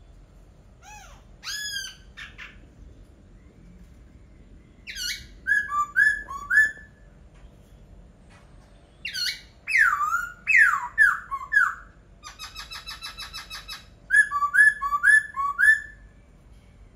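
Laughingthrush singing: loud, varied whistled phrases separated by short pauses, including a run of downslurred whistles, a fast even trill, and a two-note phrase repeated four times near the end.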